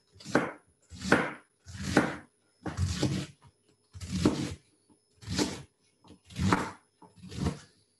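Knife cutting a head of cabbage: eight even strokes, about one a second.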